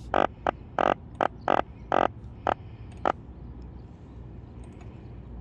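A freshly landed croaker croaking out of water: about eight short, buzzy grunts in the first three seconds, irregularly spaced, then they stop. The croaks come from the belly muscles drumming against the swim bladder.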